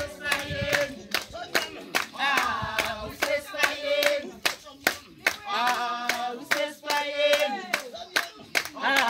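A group singing together, accompanied by steady rhythmic hand clapping at about two to three claps a second.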